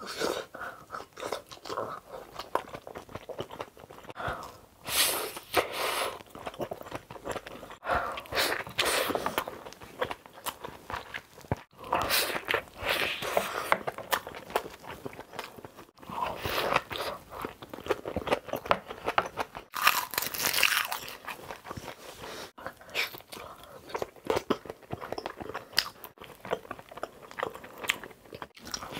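Close-miked chewing and crunching of big mouthfuls of kimchi and rice, with louder bursts of crunching every three or four seconds.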